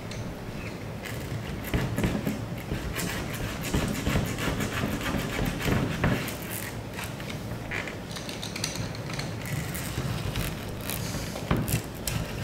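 Spline roller being run along a screen door frame's channel, pressing the rubber spline and screen mesh into the groove: a long run of scraping and crackling clicks.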